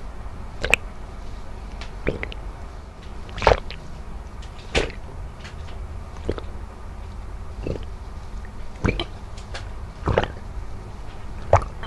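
A person gulping water from a plastic bottle with close-up, mouth-level sound: about nine short, sharp swallows, evenly spaced at roughly one every 1.3 seconds.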